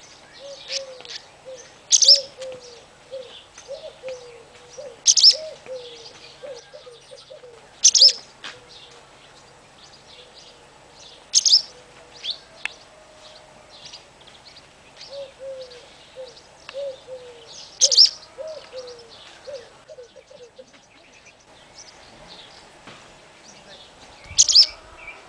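Barn swallows twittering, with rapid chirps throughout. About six loud, sharp calls come every few seconds. A lower, fast warbling runs beneath in stretches.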